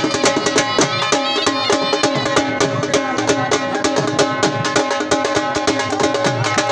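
Saraiki jhumar dance music: rapid, steady drum strokes with a sustained melody line held over them.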